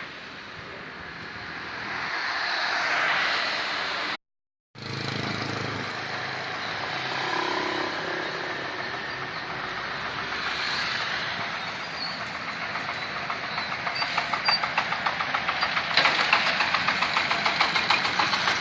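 Vehicle noise at a railway level crossing that swells and eases, with a fast, even clattering that grows louder over the last few seconds. The sound cuts out completely for about half a second around four seconds in.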